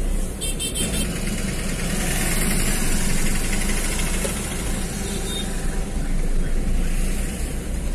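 Steady engine hum and road noise from a vehicle driving along a city street, with traffic around.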